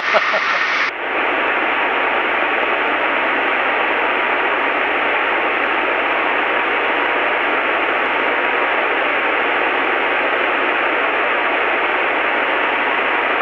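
Steady hiss of cockpit noise heard through an aircraft headset intercom, a flat rushing sound with a faint steady tone under it. The sound narrows and the tone appears about a second in, then holds unchanged.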